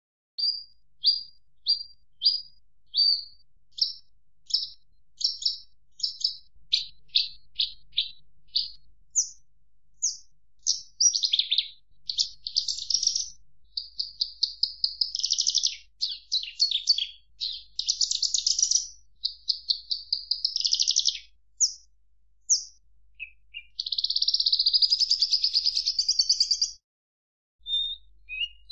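Birdsong: high chirps, at first evenly spaced at about two a second, then quickening into rapid trills and long dense runs of song, with a brief pause near the end.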